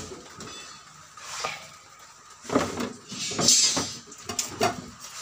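Knocks and clatter of a cutting board and a dressed piglet being handled in a stainless steel sink, with a short scrape among the knocks, mostly in the second half.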